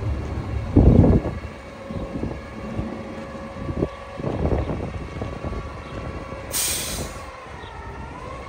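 Autocar McNeilus front-loader garbage truck idling with a steady hum, a heavy low thump about a second in, and a short blast of air hiss, like an air-brake release, shortly before the end.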